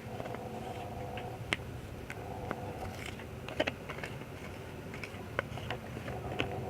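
A stirrer knocking and scraping lightly against a container as detergent-and-water slime activator is stirred slowly, giving irregular light clicks, several a second at times, over a faint steady background hum.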